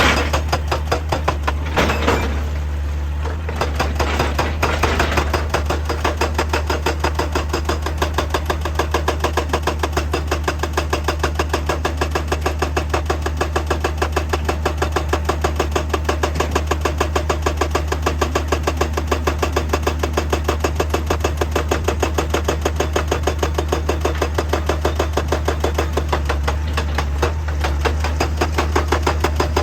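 Heavy machinery's diesel engine running steadily under a fast, even hammering, several strokes a second, with a few heavier knocks in the first few seconds.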